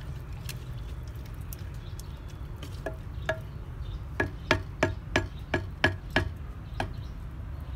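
Wooden spatula stirring chicken and tomatoes in a clay haandi, then knocking on the clay pot's rim: a run of sharp, briefly ringing knocks, about three a second, in the second half. A steady low rumble runs underneath.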